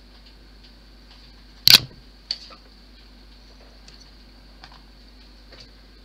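A sharp hard clack about two seconds in, then a smaller click about half a second later, with faint scattered ticks around them, like tools or small parts being handled on a workbench.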